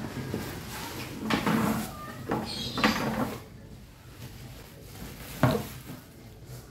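Cardboard box rustling and scraping as a bubble-wrapped rice container is pulled out of it, then a single thump about five and a half seconds in as the container is set down on a wooden table.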